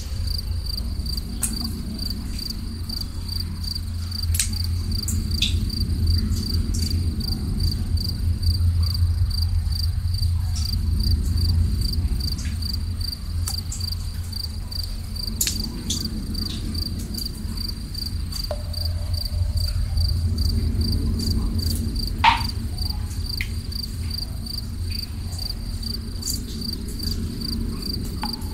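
Crickets chirping in a steady, rapidly pulsing trill over a low, constant rumble, with scattered water drips, one louder drip about 22 seconds in.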